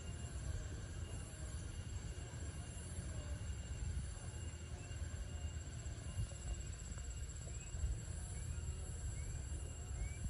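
Heavily loaded sugarcane truck's engine pulling slowly away through mud, a low uneven rumble. A steady high insect drone runs under it, with a few short rising chirps near the end.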